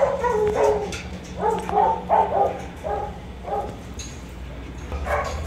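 Dogs barking in a run of short, fairly high-pitched barks, most of them between about one and a half and three and a half seconds in, then a brief lull before more barking near the end.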